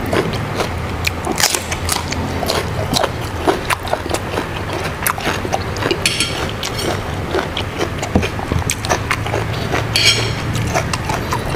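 Close-miked eating: steady chewing with many small wet clicks and crunches, as raw lalapan vegetables with sambal are bitten and chewed. Two sharper crisp crunches stand out, about six and ten seconds in.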